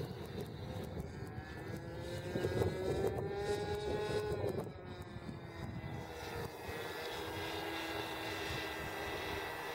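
Scratch-built radio-controlled model airplane flying overhead, its motor and propeller giving a steady buzzing drone. The pitch drops about halfway through, then holds lower.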